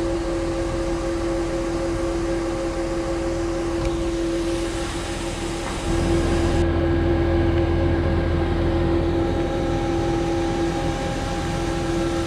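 Bulk feed truck running as it unloads pig feed up into a silo, a steady mechanical hum with a constant tone. About six seconds in, the low rumble steps up and stays louder.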